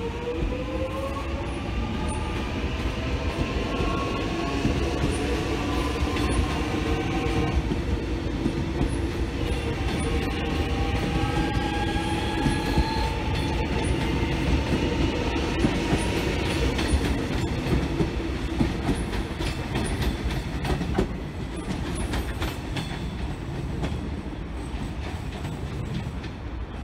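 Electric suburban train pulling away, its traction motors whining in several tones that rise in pitch as it gathers speed, over a steady rumble of wheels on rail. There is some clicking of wheels over the points.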